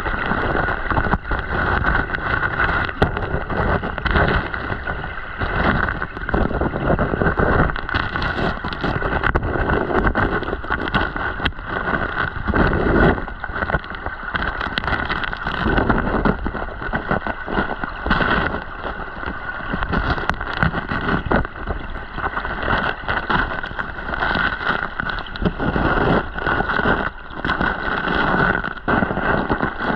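Rushing, gurgling river current heard from a camera submerged in the stream, a steady loud wash peppered with frequent small clicks and knocks.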